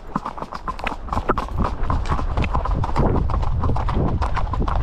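Icelandic horse cantering, its hooves striking the ground in quick, rapid beats, with a low rumble building from about two seconds in as the pace picks up.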